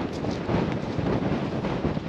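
Wind buffeting the microphone: a loud, uneven rushing noise, heaviest at the low end.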